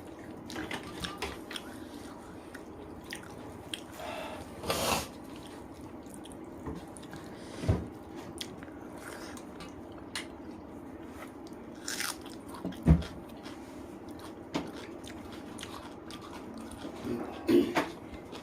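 Close-miked chewing and wet mouth sounds of a person eating rice with spicy chicken curry. Irregular smacks and bites recur, with a few louder ones and one sharp knock about two-thirds of the way through.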